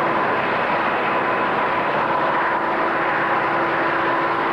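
Steady, even roar of a moving train heard from on board, with a faint constant whine running through it.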